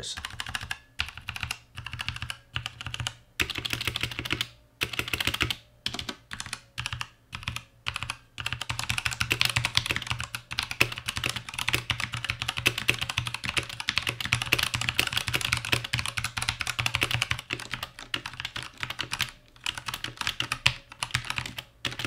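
Typing on a Redragon Draconic K530 60% mechanical keyboard with brown switches, double-shot ABS keycaps and a metal plate. It starts with short runs of keystrokes broken by pauses, then about ten seconds of fast, near-continuous typing. The clacks are crisp and solid with a lot of low end, and carry a slight, very faint bell-like ring.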